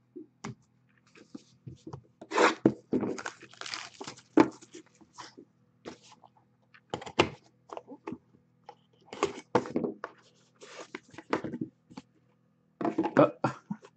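Cardboard trading-card hobby boxes and cards being handled on a table: a box set down and its lid lifted off, with irregular rubbing, scraping and light knocks.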